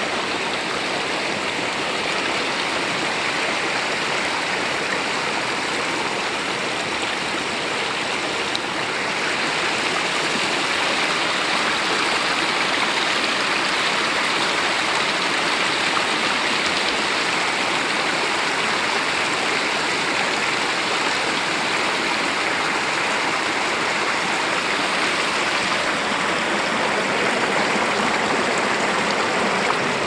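Shallow mountain creek running over and between boulders, a steady rushing and splashing of water that grows a little louder about a third of the way in.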